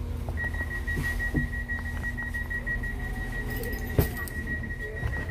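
Inside a train carriage: the train's low, steady rumble, with a steady high-pitched tone sounding over it from about half a second in, and a single sharp knock about four seconds in.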